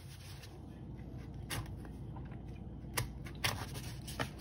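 Scissors cutting into a small package, giving four short, sharp snips spread out over a few seconds.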